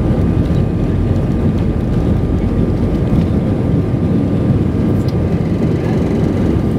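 Airbus A320 jet engines at takeoff thrust, heard inside the cabin: a loud, steady low noise with a thin, steady whine above it, as the aircraft runs down the runway and rotates for liftoff.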